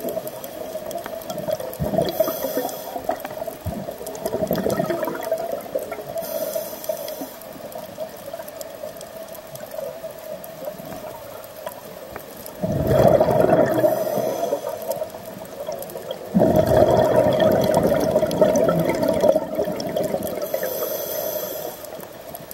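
Scuba regulator breathing heard underwater: short hissing inhalations every few seconds, and long rushing bursts of exhaled bubbles, the two loudest a little past the middle. A steady hum runs underneath.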